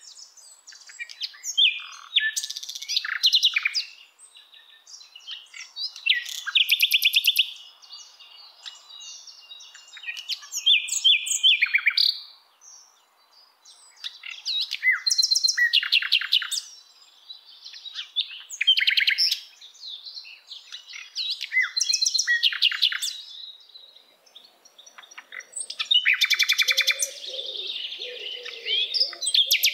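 A songbird singing in repeated phrases of high chirps and rapid trills, a new phrase every few seconds. A fainter, lower warbling joins near the end.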